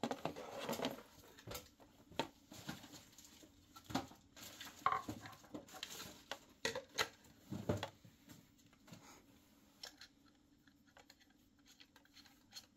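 Hard plastic parts of a protein skimmer pump being handled and fitted by hand: scattered clicks, knocks and light rattles of plastic on plastic, thinning out in the last few seconds.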